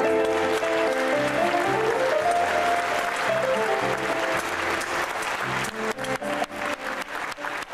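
An electronic keyboard plays the closing notes of a song, with a run that rises and then falls, and dies away about four to five seconds in. Audience applause swells beneath it and is heard as separate hand claps near the end.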